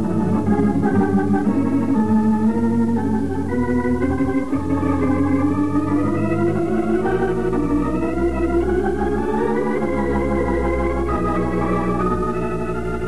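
Organ music bridge: sustained organ chords shifting from one to the next, climbing in pitch through the middle, marking a change of scene in the radio drama.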